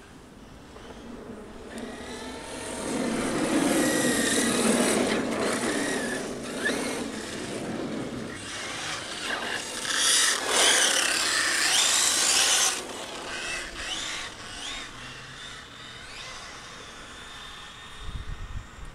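Radio-controlled car running hard on tarmac: its electric motor whines, rising and falling in pitch as it speeds up and slows, over the hiss of tyres. It gets loud twice, about three seconds in and again near the middle, as it passes close.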